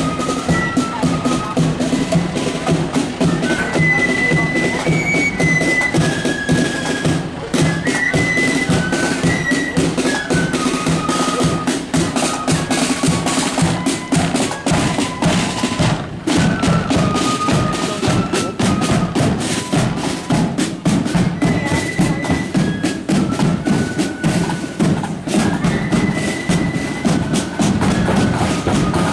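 Marching band playing a tune, a melody of held notes over the steady beat of side drums and a bass drum.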